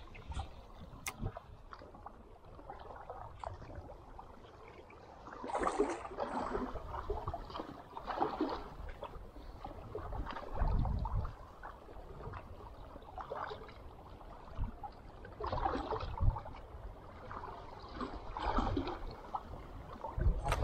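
Sea water lapping and gurgling against a small boat's hull in irregular splashes, with a few low knocks.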